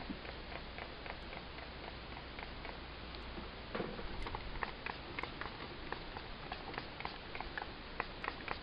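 Faint, irregular light clicks and taps from a gloved hand setting soap embeds into a paper-lined mold, busier in the second half, over a steady low hum.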